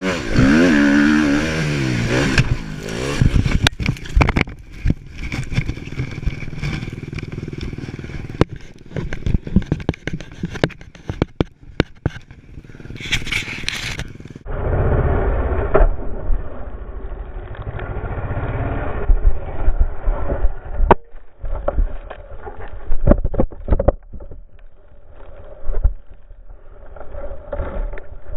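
A motocross dirt bike's engine revving up and down, cut off about two and a half seconds in by the crash of a crossed-up jump: repeated knocks, thuds, scrapes and clatter as bike and rider hit and tumble across the dirt.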